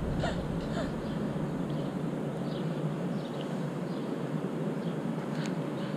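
Steady outdoor city street background: a low, even hum of distant traffic, with a few faint high chirps and a small click.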